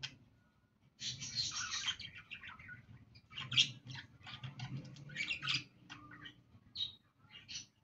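Pet budgerigars chattering: quick, busy runs of chirps, clicks and warbles, starting after a short pause about a second in and thinning out to a few scattered chirps near the end.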